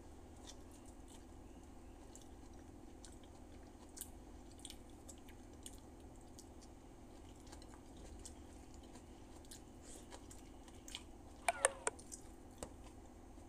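A person chewing and biting soft food, eaten by hand from a plate of pork sinigang and rice, with faint scattered wet clicks and smacks. A brief louder mouth sound comes near the end.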